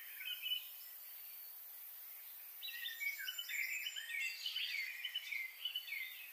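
Small birds chirping and twittering in overlapping short, downward-sweeping calls over a faint steady hiss. The calls pause for a couple of seconds, then thicken into a busy chorus from about two and a half seconds in.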